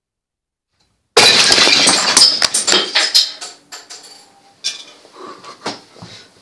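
A large Lego model hits a carpeted floor about a second in and breaks apart: a sudden loud crash, then about two seconds of plastic bricks clattering and scattering, thinning to scattered clicks of loose pieces settling.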